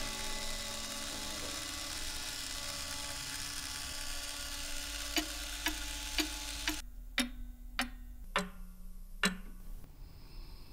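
Cuckoo clock ticking, eight ticks about half a second apart and slowly spacing out. Under the first ticks a steady mechanical whirr runs, then cuts off suddenly about seven seconds in.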